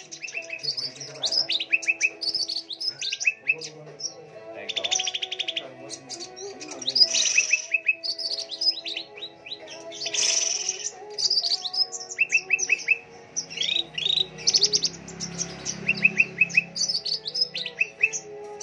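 Several small birds chirping and singing together, with fast trills and quick runs of repeated chirps overlapping throughout.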